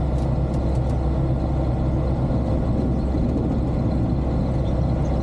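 Aeroprakt A22LS light aircraft's Rotax 912 four-cylinder engine and propeller running with a steady, even drone.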